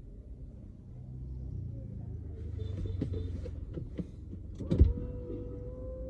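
Motor scooter engine passing by, its low rumble building and then fading. Near the end a single loud knock, followed by a steady hum.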